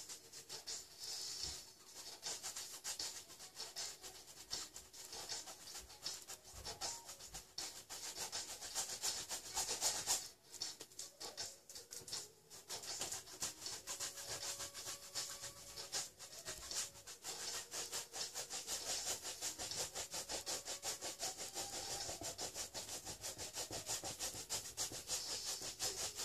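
A bristle brush scrubbing oil paint onto a large stretched canvas in rapid back-and-forth strokes, making a dry, scratchy rubbing sound. It breaks off briefly about ten and twelve seconds in.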